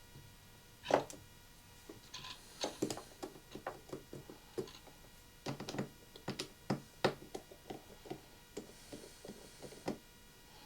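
Irregular clicks and light taps of small tools and phone parts being handled and set down during iPhone 6 Plus disassembly, with the loudest tap about a second in.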